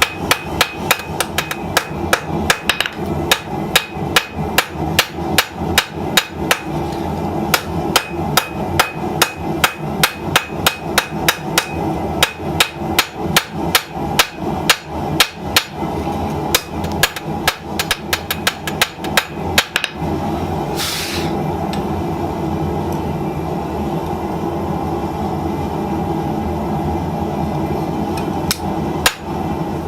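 Hand hammer striking steel on an anvil while forging a kiridashi blade, in a steady rhythm of about three blows a second. After about twenty seconds the hammering stops, leaving a steady rushing noise with a short hiss and a single last strike near the end.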